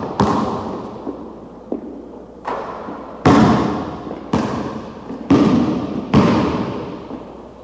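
A basketball bouncing hard, six heavy bounces at uneven intervals, each with a long echo that dies away slowly.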